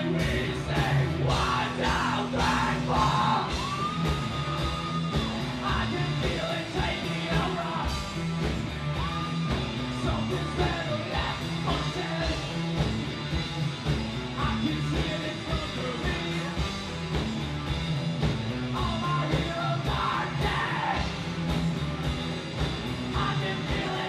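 A live band playing loud music with a steady beat, a vocalist singing over it.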